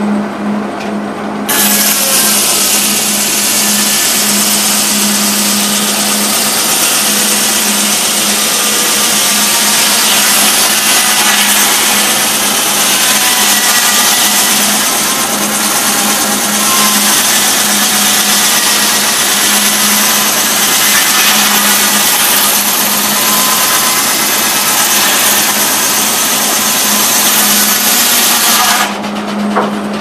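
The large circular saw of a steam-driven sawmill cutting lengthwise through a log on the carriage. A loud rasp with a wavering whine starts about a second and a half in and cuts off just before the end. A steady low hum runs underneath.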